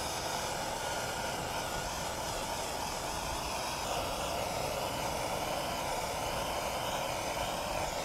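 Handheld gas torch burning with a steady rushing roar of flame.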